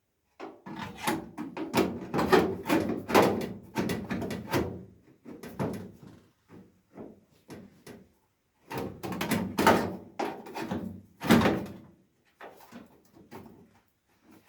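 A steel repair panel being handled and knocked into place against car bodywork: irregular metal clunks, bangs and scraping. They come in two busy spells, the first in the opening five seconds and the second around ten to twelve seconds in, with scattered knocks between and after them.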